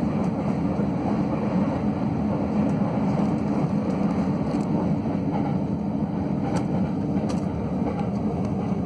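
Steady rumble of a Tokaido Line passenger train running, heard from inside the passenger car, with a few faint clicks.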